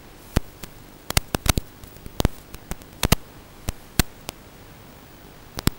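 Steady hiss broken by about a dozen irregular sharp clicks, some coming in quick clusters of two or three.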